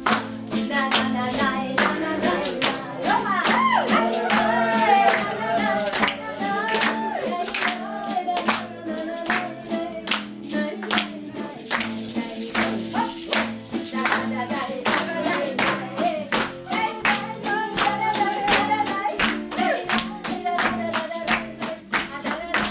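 A song with a singing voice over a steady, sharp beat that may include rhythmic hand clapping.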